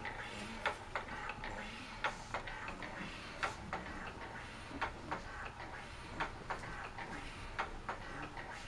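Motorized baby swing ticking as it rocks, a pair of sharp clicks about every second and a half.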